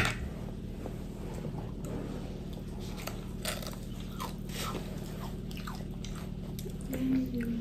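Close-up eating sounds: fried chicken being pulled apart by hand and chewed, with scattered small crunches and clicks. There is a sharp click at the very start and a brief low hum near the end.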